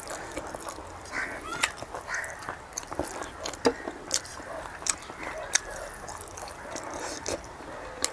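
Close-up eating sounds: wet chewing with repeated sharp lip-smacking clicks, at irregular intervals.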